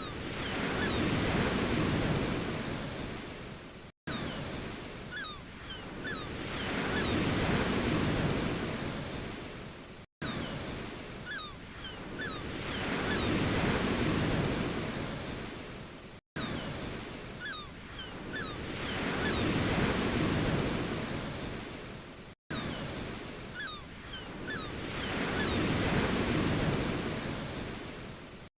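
Ocean waves washing onto a shore. Each wave swells and fades over about six seconds, with a few faint short chirps in each one. The same stretch of sound repeats with a brief cut-out between repeats, as in a loop.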